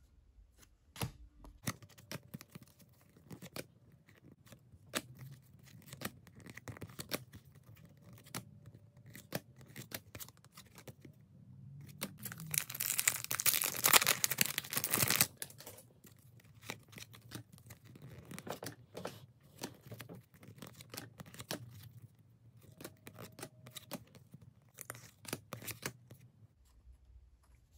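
Trading cards being handled and slid against each other, with small scrapes and clicks. About halfway through, a foil card-pack wrapper is torn and peeled open in a loud crinkling rip lasting a few seconds.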